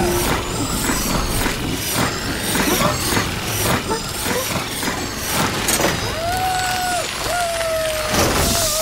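Workshop machinery sound effects: busy clattering and hissing with rapid clicks throughout. From about six seconds in come a few short held high-pitched tones that slide at their ends.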